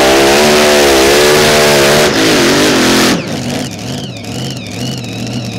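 Mini Rod pulling tractor's engine running flat out under load, its pitch wavering as the tyres dig. About three seconds in, the throttle is cut and the engine drops abruptly to a much quieter low idle.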